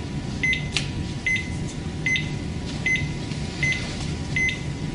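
Cardiac monitor beeping once for each detected heartbeat: a short high beep about every 0.8 s, roughly 75 a minute, over a steady low hum.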